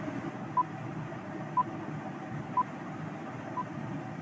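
Quiz countdown timer beeping once a second: four short high beeps at an even pace, the last one fainter, over faint steady background hiss.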